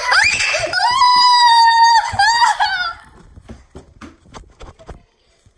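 A child screaming, high-pitched and held for about three seconds, the pitch sweeping up at the start and wavering near the end. Then a scatter of quick light taps from running footsteps.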